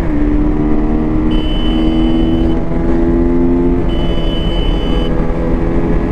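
Motorcycle engine running steadily while riding, with wind rumble on the microphone. A high-pitched beep sounds twice, each about a second long.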